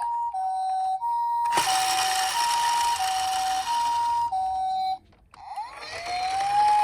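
Toy ambulance minicar's electronic siren playing a hi-lo two-tone pattern, alternating between a higher and a lower tone about every two-thirds of a second, with a hiss joining about one and a half seconds in. It stops about five seconds in, and after a brief pause a siren tone rises in pitch and holds steady near the end.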